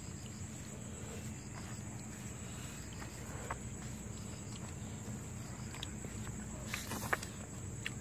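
Fingers mixing and squishing rice and chicken curry on plates, with scattered faint clicks and a brief louder rustle about seven seconds in, over a steady high insect drone.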